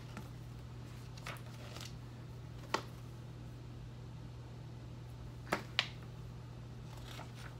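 Pages of a small paper booklet being turned and handled: a few soft rustles and light clicks, the sharpest nearly three seconds in and twice about five and a half seconds in, over a steady low hum.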